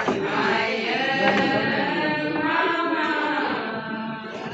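A group of women singing a ponung folk chant together, several voices holding long sung lines in a slow rising and falling melody.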